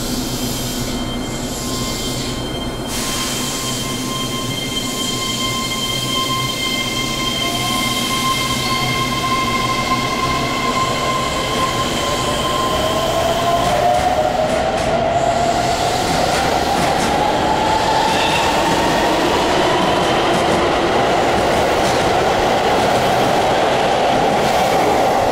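Keihan electric train in an underground station, pulling out. A steady high whine starts about two seconds in. From about eleven seconds, a motor whine rises steadily in pitch as the train accelerates, over growing wheel and rail noise.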